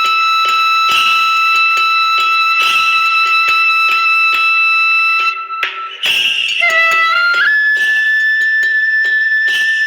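Background music: long held melody notes, like a wind instrument, over a steady beat, with a brief drop-out about five and a half seconds in.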